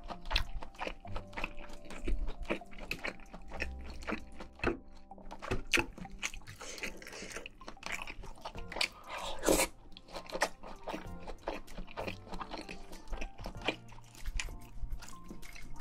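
Close-miked eating: irregular crunching, biting and chewing, louder about nine seconds in, over soft background music.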